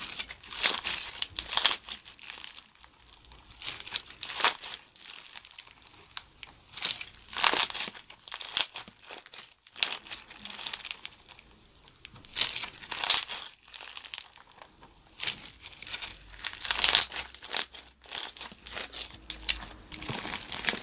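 Clear slime packed with tiny dolphin beads being squeezed and stretched by hand, making crinkly, crackling sounds in irregular bursts.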